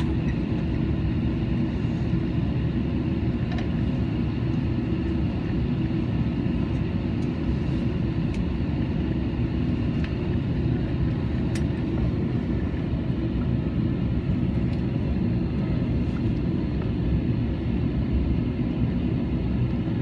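Steady low rumble of an Airbus airliner's cabin noise, with a few faint clicks now and then.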